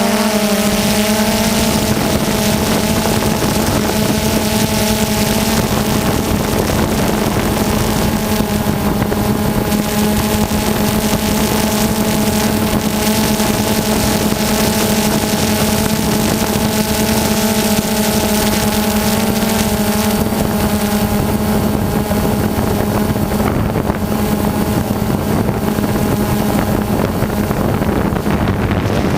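Small model engine running steadily at constant speed with an unchanging buzzing pitch, with some wind on the microphone.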